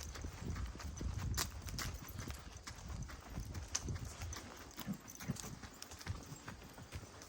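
Irregular footfalls knocking on a forest track, several a second, over a low rumble.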